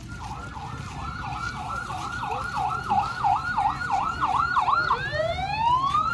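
Electronic vehicle siren yelping, its pitch swinging quickly up and down and speeding up, then about five seconds in switching to a slow rising wail.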